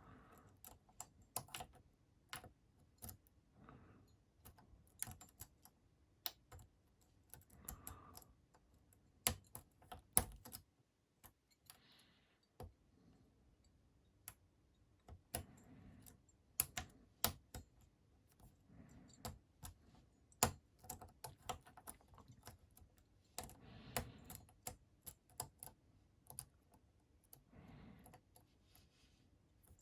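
Irregular light clicks and taps of a lock pick working the pin stack of a Master Lock 410 padlock held under tension, as pins are set one by one.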